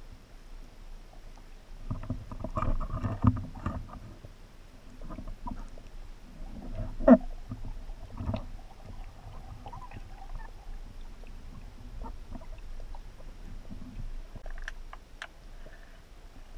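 Muffled underwater sounds of a diver moving through the water: low water rumble with scattered knocks and clicks, and one sharp loud knock about seven seconds in.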